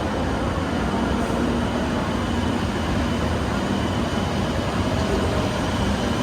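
E7 series Shinkansen train passing through the station on the non-stop through track: a steady, loud rushing noise that holds level without a rise or fall.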